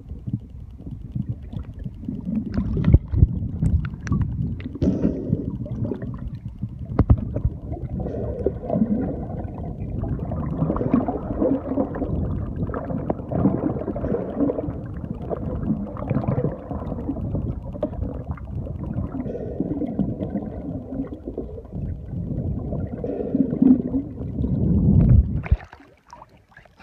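Humpback whale song heard underwater: continuous low moans and grunts with some higher drawn-out tones, cutting off near the end as the recording leaves the water.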